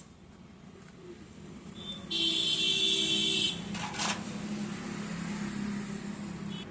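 A small electric motor whirs steadily for about a second and a half, starting about two seconds in and stopping abruptly, followed by a single click; a faint low hum runs underneath.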